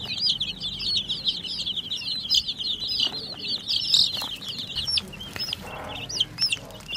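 A flock of domestic chicken chicks peeping, many short high chirps overlapping in a steady stream that thins out after about five seconds into fewer, longer rising peeps.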